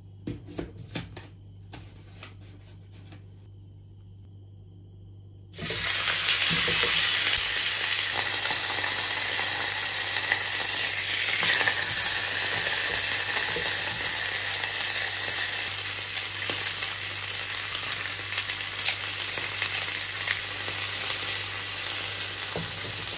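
A few light clicks of a knife cutting potatoes, then about five and a half seconds in, raw beef chunks go into a hot frying pan and start sizzling loudly at once. The sizzle holds steady, with small clicks of metal tongs against the pan as the pieces are turned near the end.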